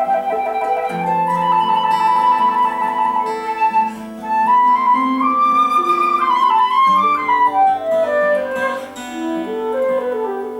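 Folk instrumental: a flute plays a melody with quick trilled and ornamented runs over a Celtic harp accompaniment.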